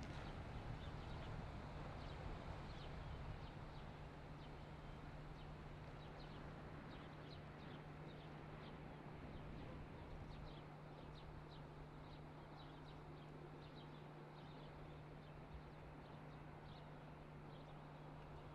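Faint dusk outdoor ambience: scattered short, high chirps repeating through it, over a low steady hum and soft background noise.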